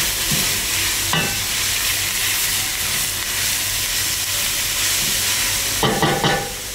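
Chopped onions sizzling in hot oil in a granite-coated pot as a slotted spatula stirs them, being lightly sautéed to soften rather than brown. The spatula knocks against the pot once about a second in and several times near the end.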